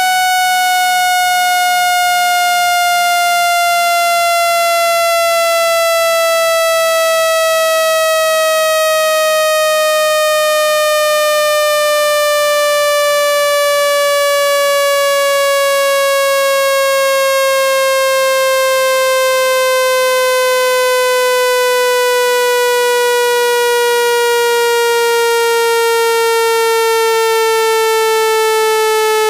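Speaker-cleaning test tone meant to shake water and dust out of a phone speaker: one loud, buzzy electronic tone that falls slowly and steadily in pitch.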